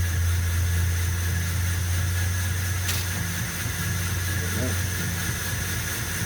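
Belt grinder motor running steadily with a low hum, with one sharp click about three seconds in.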